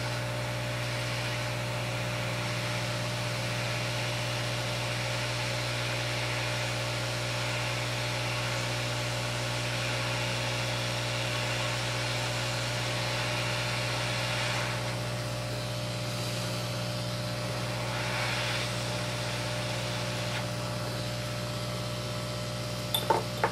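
Hot air rework station blowing steadily: a low hum under an even rush of air while the old LCD connector on an iPhone 6 logic board is heated off. A few short clicks near the end.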